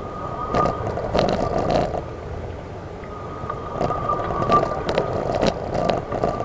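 Electric wheelchair running with a steady high motor whine. Twice it gives spells of rumbling and sharp knocks as the wheels roll over rough ground.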